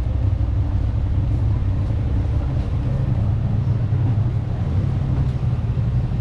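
Street ambience: a steady low rumble with a faint hiss above it.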